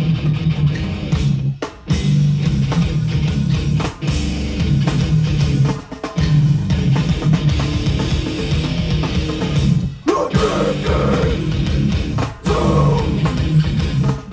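Hardcore band playing live: distorted electric guitars, bass and a drum kit pounding out a heavy riff, with brief stops in the riff every couple of seconds.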